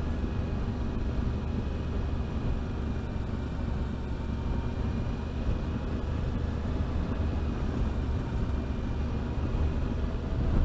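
Yamaha Ténéré 700's parallel-twin engine on its stock exhaust, running steadily as the bike is ridden, heard with road and wind noise.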